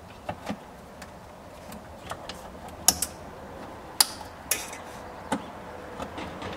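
A clip remover tool prying at a brittle plastic push-in clip, making a series of sharp clicks and snaps as the clip works loose; the loudest snap comes about four seconds in.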